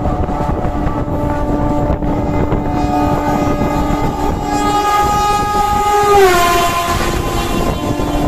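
Oncoming electric locomotive sounding its horn as it approaches on the adjacent track, the horn's pitch dropping sharply about six seconds in as it passes, then its coaches rushing by. Throughout there is the wind and running noise of the train being ridden.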